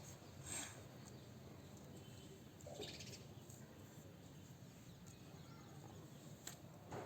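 Near silence: faint room tone with a few soft, short sounds about half a second, three seconds and six and a half seconds in.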